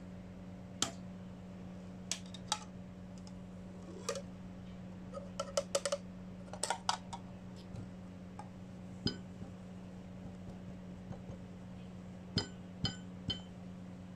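Cups and cutlery clinking and knocking as they are handled while making coffee, about fifteen scattered light clinks over a steady low hum.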